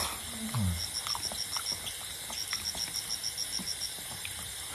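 Close mouth sounds of a person eating curry and rice by hand: wet chewing and lip-smacking clicks, with a short falling 'mmm' hum about half a second in. A faint high chirping in regular bursts, like an insect, runs underneath.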